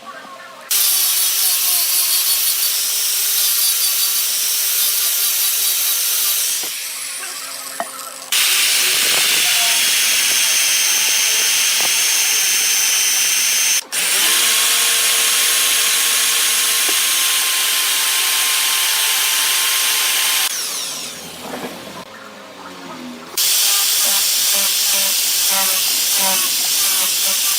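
Wood lathe running with a turning tool cutting into the spinning workpiece: a loud, hissing cut with a few steady high tones over it. It breaks off and resumes abruptly several times, with a short gap about two-thirds of the way in.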